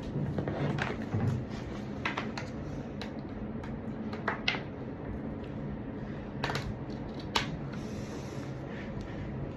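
A handful of scattered sharp clicks and light knocks from handling a mechanical keyboard, over a steady low hum. The clicks come a second or two apart, not in a typing rhythm.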